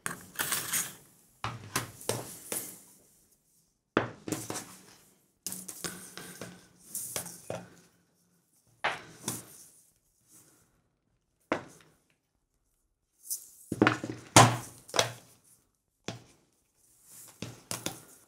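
Intermittent handling sounds of a small plexiglass box being wrapped with satin ribbon: light clicks and knocks of the plastic box against the table and fingers, with rustling of the ribbon, in irregular bursts with short pauses between.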